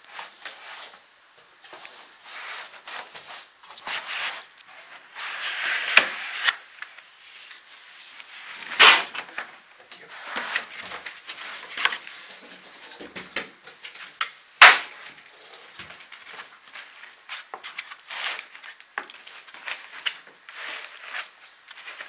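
Unpacking noises: white foam packing blocks and a cardboard box rubbing, scraping and rustling against a plastic-wrapped projector, with a few sharp knocks along the way.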